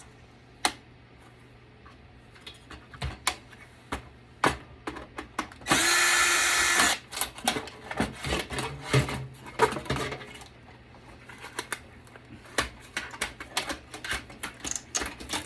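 A cordless power drill/driver whirs for about a second, about six seconds in, taking a fastener out of a desktop computer, among many short clicks and knocks of metal computer parts and screws being handled.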